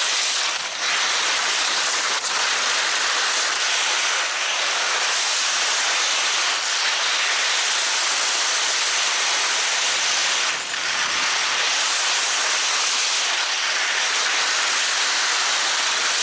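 Steady, loud hissing noise with no distinct events, strongest in the upper range and thin in the bass.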